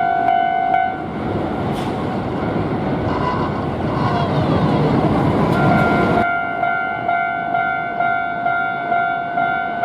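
Japanese level crossing warning bell ringing in quick repeated dings, about two a second. From about a second in, a Hankyu electric train runs through the crossing and its wheel and running noise drowns the bell. The train noise cuts off abruptly about six seconds in and the bell rings on.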